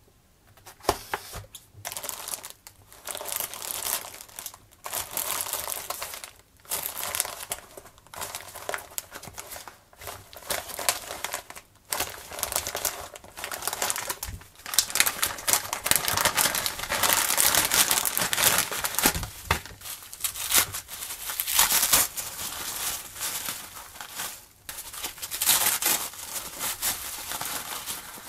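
Plastic zip bags crinkling and rustling as gloved hands handle and sort through them, in irregular spells broken by short pauses.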